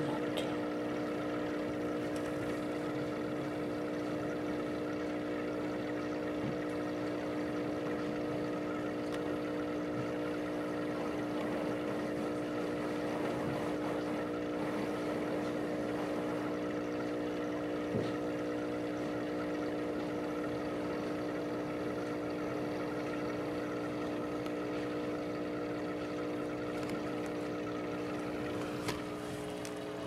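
Aquarium air pump humming steadily, with the air-driven filter bubbling in the tank. A small click midway and another near the end.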